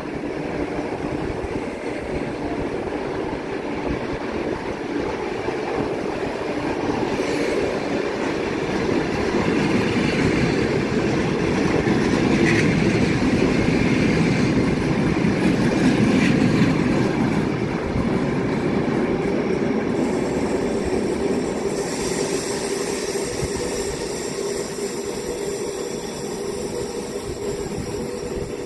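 Passenger coaches of a departing train rolling past on the platform track, wheels and bogies rumbling and clicking over the rail joints. The sound swells as the coaches and the Ukrainian sleeping cars at the rear go by, then fades as the train pulls away.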